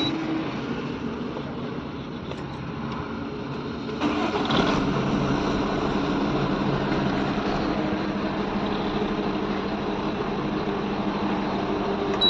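Bharat Benz truck's diesel engine idling steadily just after starting, with a brief surge about four seconds in, after which it runs a little louder. It is running again after a repair to a fuse socket that had burnt through a loose contact.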